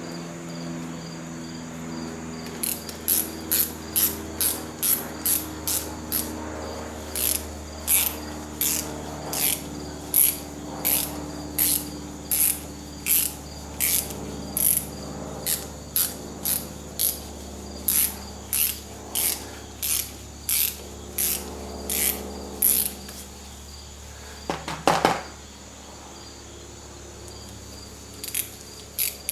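Ratchet wrench clicking in quick, even strokes, about two a second, as nuts are undone on the Phantom III's front suspension cross member, followed by a single metallic clank.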